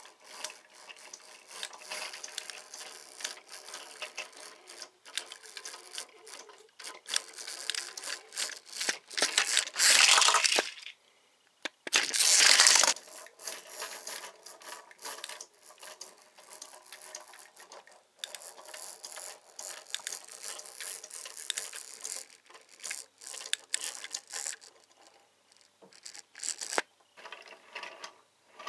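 Small plastic capsule-toy pieces being handled, clicked and rattled together, with two louder bursts of rustling about ten and twelve seconds in.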